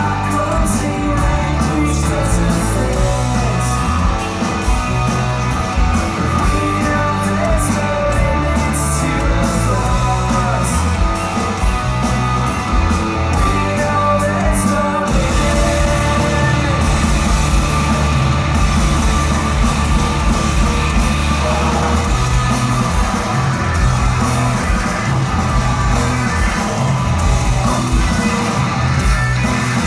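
Shoegaze rock band playing live: loud guitars, bass and drums with sung vocals, heard from the audience in a large hall. About halfway through, the sharp, regular drum and cymbal strikes give way to a denser, smoother wash of sound.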